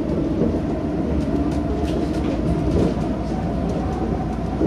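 Inside a Chiba Urban Monorail car, a suspended monorail on rubber tyres, while it runs along its overhead track: a steady low running rumble with a few faint rattles.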